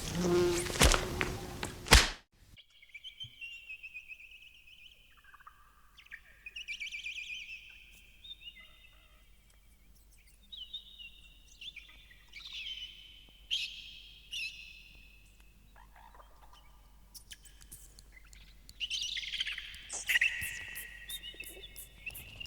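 A loud buzzing ends abruptly with a sharp hit about two seconds in. Then birds sing in short high chirps and trills, with a quiet gap around ten seconds in.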